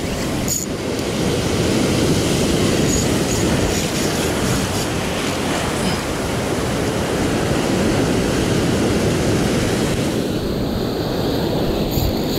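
Waves breaking and washing over a rocky shore, with wind buffeting the microphone: a loud, steady rushing rumble.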